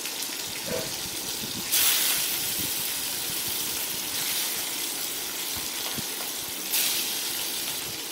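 Rohu fish steaks, rubbed with salt and turmeric, sizzling in hot mustard oil in a kadai as they are slid in one by one. The sizzle surges each time a new piece goes in, about two seconds in and again near the end.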